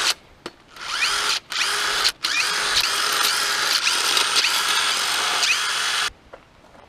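Cordless drill spinning out loosened crankshaft main bearing cap bolts. A couple of short trigger blips come first, then the motor whirs for about five seconds with repeated rising whines as it speeds up under the trigger, and it stops suddenly about six seconds in.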